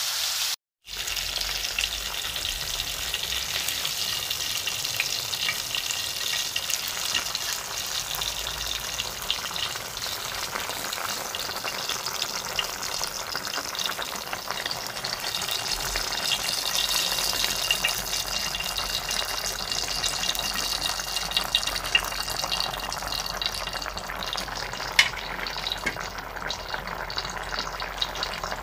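Tomato sauce with fried fish bubbling hard in a pan, a steady crackling sizzle, with a spatula stirring in it now and then. The sound cuts out for a moment about half a second in.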